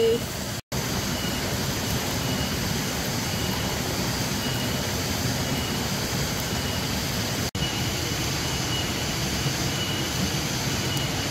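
Cooking pot at a hard rolling boil over a wood fire, a steady bubbling hiss with a low rumble. It cuts out for an instant about a second in and again past halfway.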